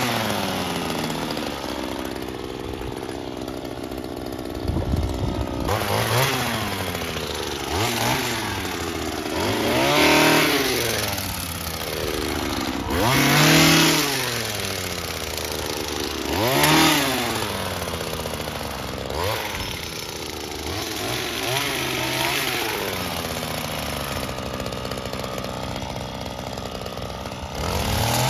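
Small gas engine of a handheld yard power tool revving up and dropping back again and again, with a burst about every two to four seconds over a steady running drone.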